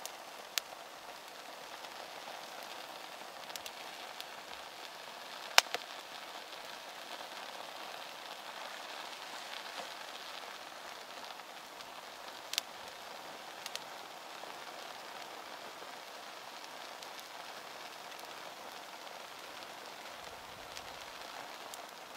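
Twig-and-pine-cone kindling bundle on top of an upside-down fire lay, burning with a steady crackling hiss and a few sharp pops, the loudest about five and a half seconds in.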